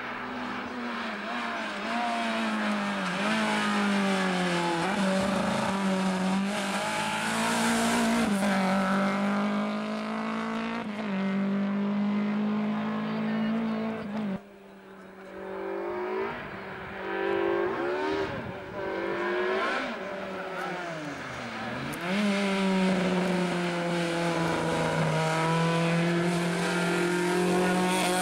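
Rally hatchbacks, a Renault Clio and later a Peugeot 206, driven flat out past the microphone, their engines revving high and dropping with each gear change. The engine sound cuts off suddenly about halfway through, then another car's engine swells up and revs on.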